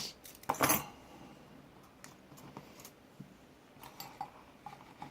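Small metal tools and parts clinking and rattling as they are handled and moved on a work surface: one louder clatter about half a second in, then a few light clicks.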